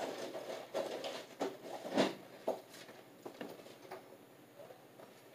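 Scattered light knocks and clicks of things being handled, one sharper knock about two seconds in, thinning out toward the end.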